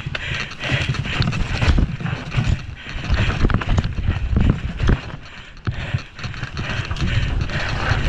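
Mountain bike descending a rough trail: the bike's parts and tyres rattle and clatter over bumps, with a low wind rumble on the microphone. It eases briefly about two-thirds of the way through.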